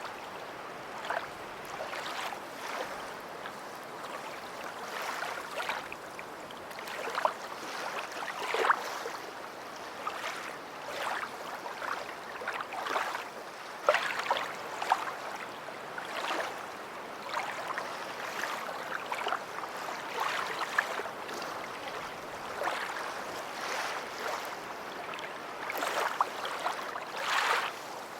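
Small waves lapping and splashing at the shoreline: a steady wash broken by frequent short, irregular splashes, the largest near the end.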